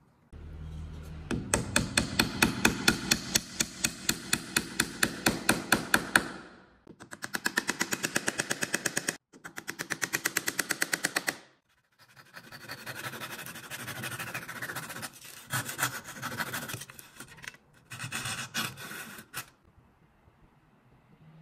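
Wood being worked with a tool in fast, even strokes: three runs of quick rhythmic rasping, each stopping briefly, followed by slower, uneven scraping and knocks that stop near the end.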